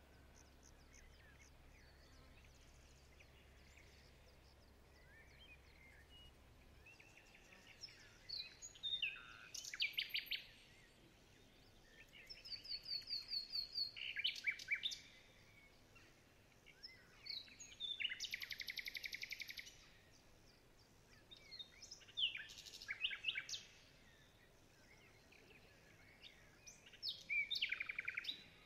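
Small songbird singing: short, rapid trilled phrases repeated every few seconds, with faint steady background noise between them.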